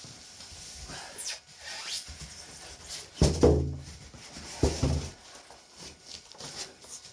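Cardboard and foam packing rubbing and squeaking as a large TV is lifted and slid out of its box, with two short voice-like sounds falling in pitch about three and four and a half seconds in.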